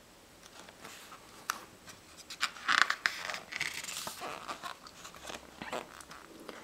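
A page of a glossy-paged book is turned by hand. It rustles and crinkles with several sharp paper snaps, loudest about three seconds in, followed by lighter handling of the pages as the book is smoothed open.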